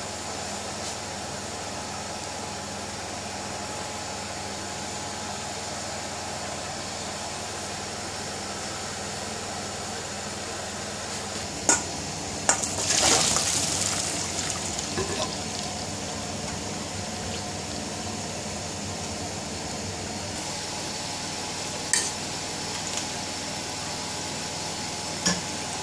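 A steady kitchen hiss. About halfway through, a metal pot clinks twice against a stainless steel colander, then water is poured off through the colander in a short rush that fades. Two more sharp clinks come near the end.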